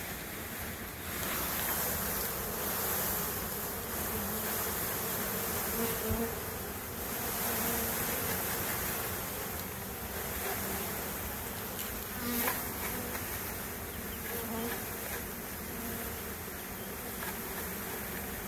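A mass of honey bees buzzing steadily as the package of bees is shaken out into an open hive.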